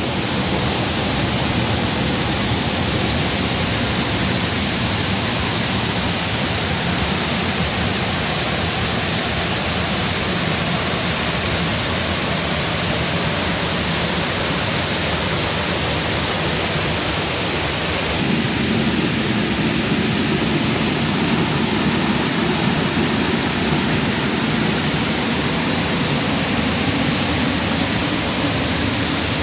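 Steady rush of water flowing and falling over rocks in a small stream, close to the microphone. About two-thirds of the way through the sound deepens slightly and stays so.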